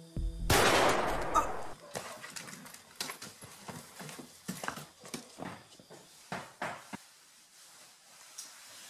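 A single pistol shot about half a second in, ringing on for about a second, followed by a few seconds of scattered sharp knocks and clicks that fade out.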